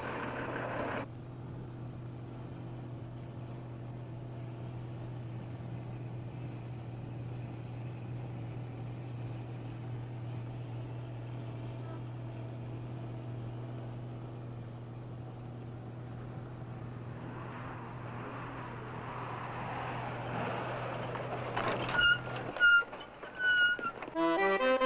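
An old truck's engine runs at a steady, even speed as a low drone. It stops near the end, where a few short high peeps come just before music starts.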